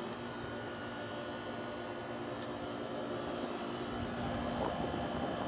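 Haier 5,200 BTU window air conditioner running and cooling, compressor and fan on: a steady hum with rushing air. One low hum tone drops out near the end.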